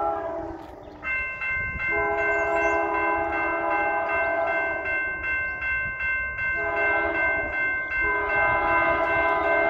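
Freight locomotive air horn sounding the level-crossing signal: one blast ends about half a second in, then comes a long blast, a short one, and another long one that begins near the end. Under the horn, the crossing's warning bell starts a second in and rings rapidly and evenly.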